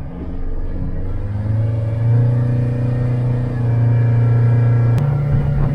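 Boat engine running under way and speeding up: a steady tone that climbs in pitch over the first couple of seconds, gets louder, and steps up again with a click about five seconds in.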